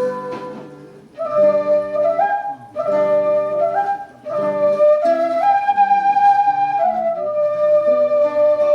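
Quena, the Andean end-blown flute, playing a slow melody over a lower backing accompaniment. It pauses briefly for breath about one, two and a half and four seconds in, and holds one long note in the middle.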